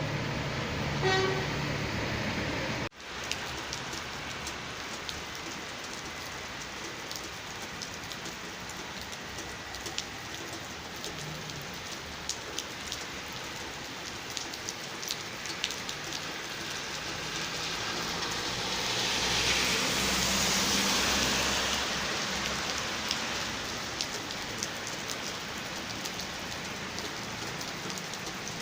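Steady rain falling, with scattered drops ticking through the hiss. A short horn-like tone sounds in the first second, and the sound cuts out abruptly for a moment about three seconds in. About two-thirds of the way through, a louder hiss swells for a few seconds and fades again.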